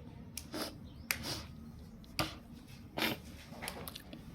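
A run of short, crisp crunches at irregular intervals, about seven in all: crunchy biscuits and namkeen being chewed close to the microphone.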